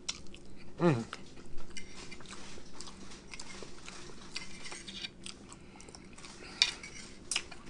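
Close-miked eating of deviled egg: wet chewing and lip smacks with small clicks of a fork against the plate, and a short hummed "mm" about a second in.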